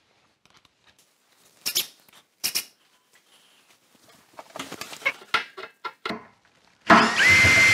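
Scattered handling clicks and rustles, with two sharp clicks about two seconds in; near the end a cordless drill spins up and runs steadily with a high whine.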